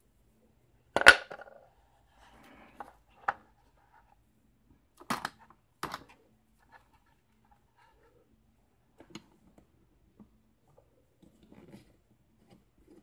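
A wooden pinning tray set down with one loud knock about a second in, then several sharper clicks and taps as metal tools and the lock cylinder are laid on it.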